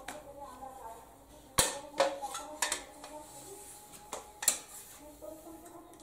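Ceiling-fan blades clacking and knocking against a hard tabletop as they are handled and laid down. There is a sharp knock about one and a half seconds in, then several lighter clacks, one a little before the middle and a louder one just after it.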